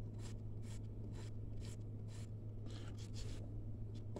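A flint flake scraping along a fresh green plant stalk on a wooden board, in short rasping strokes about two a second, over a steady low hum.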